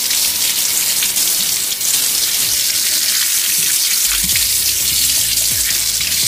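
Kitchen tap running steadily onto a chayote being rubbed clean by hand in a sink, the water splashing off the vegetable and the hands.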